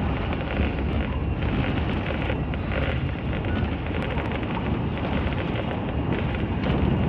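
Steady wind buffeting the microphone on an open boat at sea, a continuous low rumbling hiss with no distinct events.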